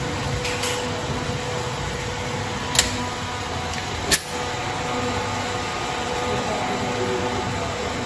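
Two pistol shots from a Canik TP9 Rival 9 mm, about a second and a half apart, each a short sharp crack over a steady background noise.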